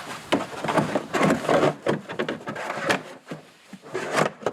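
Irregular clicks, knocks and rubbing of hands working at a car's trunk-lid gas-strut mount and the trim around it, with a sharper knock near the end.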